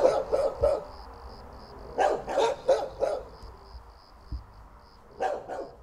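A dog barking in three short bouts: several barks at the start, about five around two seconds in, and two near the end. Crickets chirp steadily underneath in an even high pulse, about two a second.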